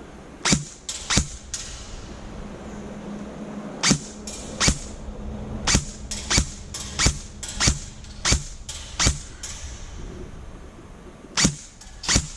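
Airsoft guns firing single shots, about twenty sharp cracks in irregular clusters: a few near the start, a steady string of one every half to two-thirds of a second through the middle, and two more near the end.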